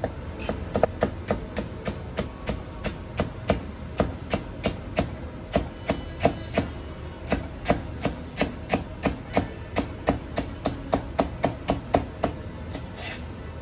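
Kitchen knife striking a cutting board in quick, even strokes, about four a second, as green bell peppers are cut into thin strips.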